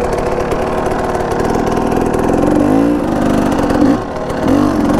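Enduro motorcycle engine running, steady throughout, with a couple of brief rises and falls in pitch.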